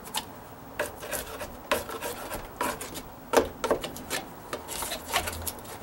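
Dry-rotted deck wood being scraped and picked away with a hand tool: irregular short rasping scrapes, with a few stronger strokes.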